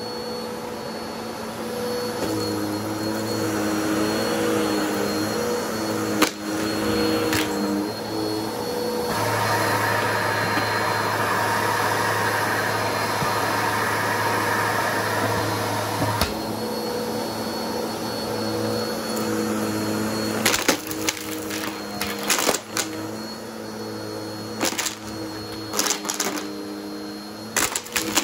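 Bissell CleanView upright vacuum cleaner running steadily on carpet. In the last third, quick rattling clicks join in as small hard debris such as coins is sucked up through the brush head.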